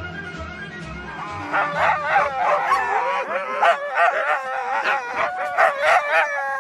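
A pack of sled dogs barking and yelping over one another, many short pitched calls overlapping, coming in about a second and a half in and growing louder.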